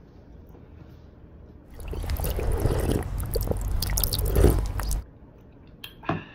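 A person drinking from a cup, gulping and swallowing for about three seconds, starting about two seconds in.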